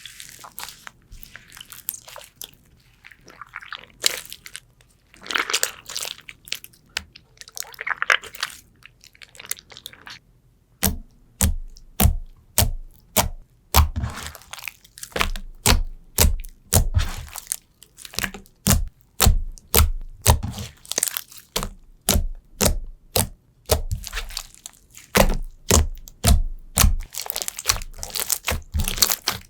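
Slime being squeezed and pressed by hand. It starts as an irregular crackly squishing, then from about eleven seconds in turns to a rapid run of sharp clicks with a soft thud under each, about three a second.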